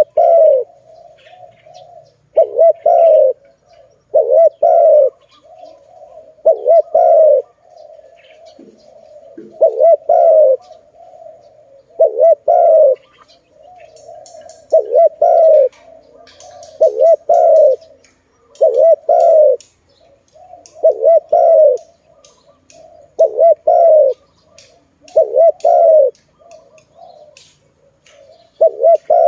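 Spotted dove (tekukur) cooing over and over: low, paired coos about every two seconds, with a softer drawn-out coo between them.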